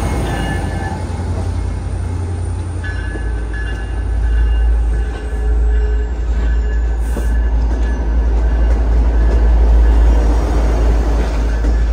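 MBTA diesel switcher locomotive running with a deep, steady rumble as it moves a train of bilevel commuter coaches slowly past. Steel wheels on the rails add intermittent thin squealing tones.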